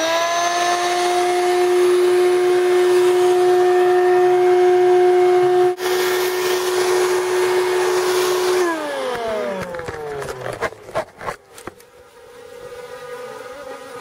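Shop vacuum motor, rigged as a bee vacuum, spinning up with a rising whine, then running steadily. About eight and a half seconds in it is switched off and winds down with a falling pitch. A few knocks follow, then the buzzing of the collected honeybees.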